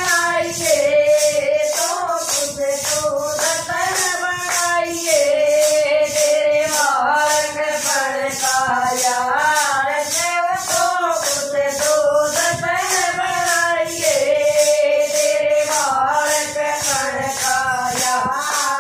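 Women's voices singing a Hindu devotional bhajan together, accompanied by hand clapping and handheld plastic rattles shaken in a steady beat of about two to three shakes a second.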